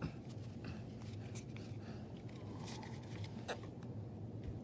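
Trading cards being handled and slid against one another: a few faint, short clicks and scrapes over low, steady background noise.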